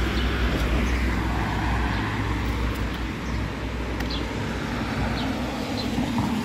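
Road traffic on a wet road: a car passing, with steady low rumble and tyre hiss that swells and eases off.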